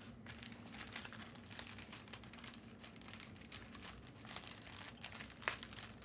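Plastic-foil trading card pack wrappers crinkling and crackling in irregular bursts as packs are handled and opened.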